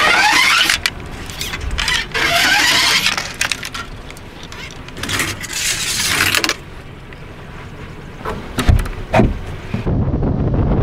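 Fishing rods being drawn out of a boat's rod locker: three long scraping swishes of rods sliding against the locker and each other, with the rattle of reels, then a few sharp knocks. Near the end a steady low hum comes in.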